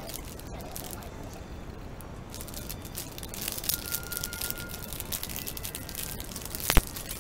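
Plastic wrapper of a packaged bread roll crinkling and rustling as it is pulled open by hand, with a sharp snap near the end.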